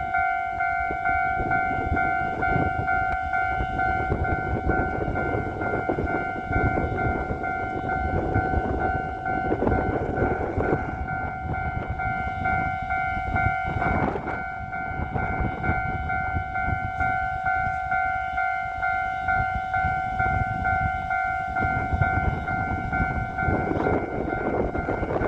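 Railway level-crossing warning bell ringing on and on as a rapidly repeating tone, over loud rumbling noise from a train on the single-track electrified line.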